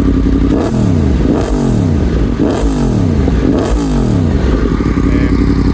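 Yamaha MT-10's crossplane inline-four, fitted with a decat exhaust, idling and then blipped four times on the throttle, about once a second, each rev rising and falling back before it settles to idle again.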